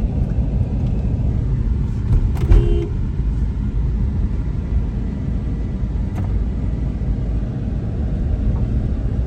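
Steady low rumble of a car riding along, heard from inside the cabin. About two and a half seconds in there is a brief knock with a short pitched tone.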